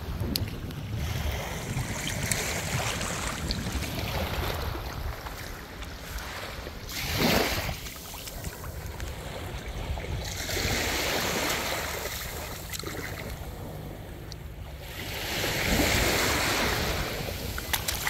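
Small waves washing up on a sandy beach, swelling and fading several times, with wind rumbling on the microphone.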